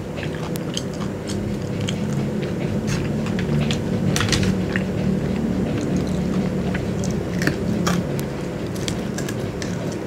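Close-miked chewing and biting of crispy fried chicken and french fries: wet mouth noises with many short crunchy clicks and smacks, over a low steady hum.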